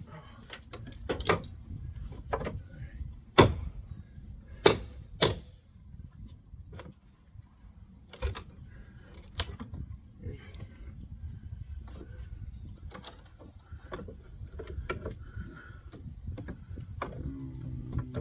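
Irregular sharp knocks and clatter from hand demolition on a wall's wooden framing, as boards and nails are worked loose. The strikes are loudest in the first five seconds or so, then turn into fainter scattered clicks and rattles.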